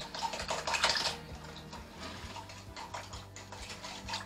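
A spoon clinking rapidly against the inside of a cup while stirring salt and sugar into rice vinegar to dissolve them. The clinks are busiest in the first second or so, then lighter.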